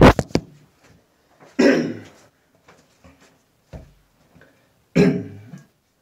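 Knocks and rubbing as a handheld camera is set down in place, then two short coughs about three seconds apart.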